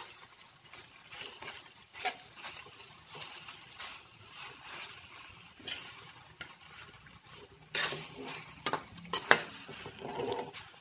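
A metal spoon stirring sauce-coated chicken pieces in an aluminium wok, scraping and clinking against the pan in an irregular rhythm. A few sharper knocks come around eight to nine seconds in.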